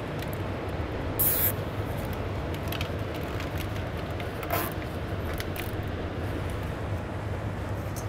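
Zip ties being pulled tight around trailer wiring, heard as two short zipping rasps, one about a second in and another past four seconds, with a few light clicks over a steady low shop hum.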